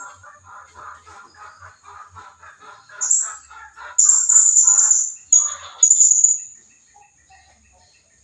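Blue-crowned hanging parrot (serindit) calls played as a lure: four loud, shrill, very high-pitched calls from about three seconds in. Under them runs a quick series of lower chirping notes, about four or five a second, which stops after about five seconds.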